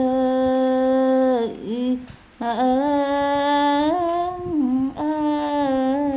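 A person humming a tune in long held notes, in three phrases with short breaks between them.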